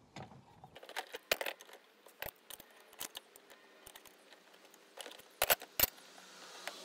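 Light metal clicks and clinks of hydraulic hose fittings and a quick coupler being handled and fitted by hand, with two sharper clicks about five and a half seconds in.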